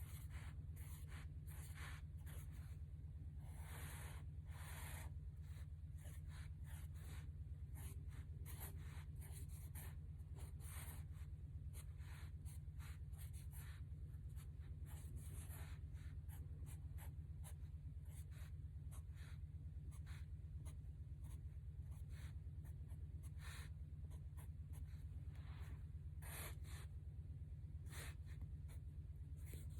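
Sharpie marker drawn across paper in many short, irregular strokes, with a steady low hum underneath.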